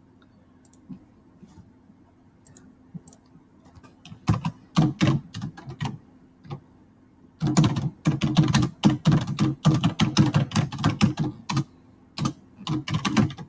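Typing on a computer keyboard: a few scattered key clicks at first, then quick runs of keystrokes from about four seconds in, with short pauses between words.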